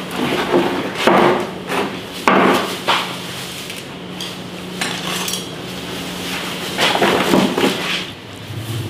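Chopsticks and tableware knocking and clinking against plates and the table: a handful of separate sharp knocks, over a low steady hum.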